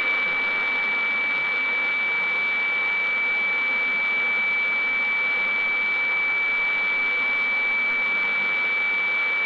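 HF radiofax signal coming through the speaker of a Sangean ATS-909X shortwave receiver in single-sideband mode: one steady high tone that holds the same pitch, over a wash of radio static. It is the unchanging tone sent once the weather-fax image has ended, the end of the file.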